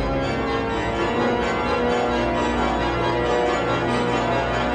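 Background score of slow, sustained chords, each held for a second or more before the next.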